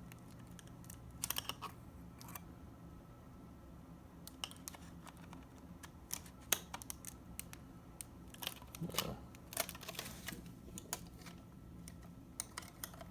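Irregular light clicks and taps of plastic against a hard drive's casing as the enclosure's connector piece is worked onto the back of the drive, over a faint steady hum.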